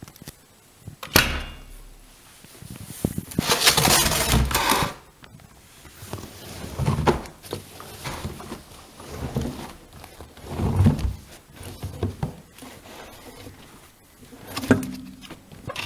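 Door and handling sounds at a front-loading washing machine: a sharp click about a second in, a rustling noise lasting a couple of seconds, then a series of soft, irregular thuds.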